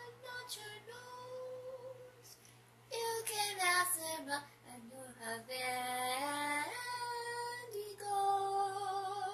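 A woman singing alone in a high voice, holding long notes and dropping in steps down a scale midway.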